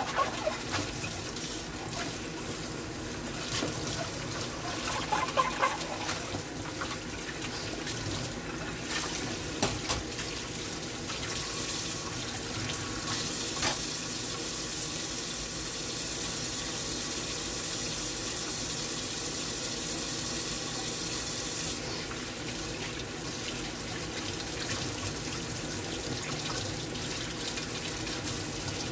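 Kitchen tap running steadily into a stainless steel sink as dishes are rinsed by hand under the stream, with a few sharp clinks of dishes in the first ten seconds. The water hiss grows brighter for about ten seconds in the middle, when it strikes a pot lid.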